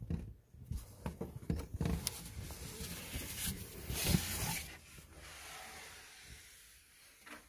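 Irregular rustling and scuffing with light knocks on wooden boards, loudest in the first half and fading out over the last few seconds.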